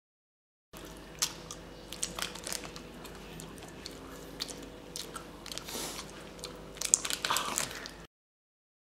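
A person chewing loudly with the mouth open: many wet smacking and crunching clicks close to the microphone over a steady faint hum. It starts under a second in and cuts off abruptly about a second before the end.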